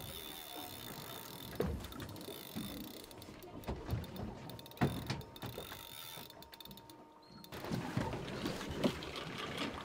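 Spinning reel clicking and whirring as a hooked fish pulls on the bent rod, with irregular knocks.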